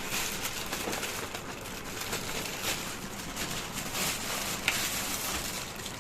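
Packaging being handled during an unboxing: continuous crinkling and rustling with irregular small crackles.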